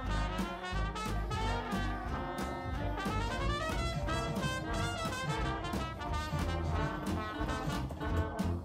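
Upbeat background music in a jazz or swing style with brass instruments and a steady beat, with a rising run of notes about three seconds in.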